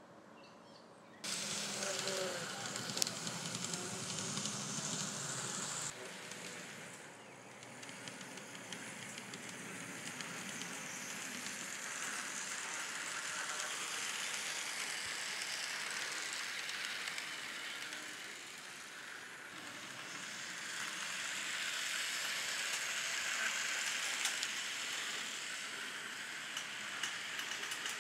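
N scale F40PH model locomotive running on the layout's track: a steady crackly, hissing rolling noise of wheels and small motor that grows louder and fainter as the train moves past, cutting in about a second in.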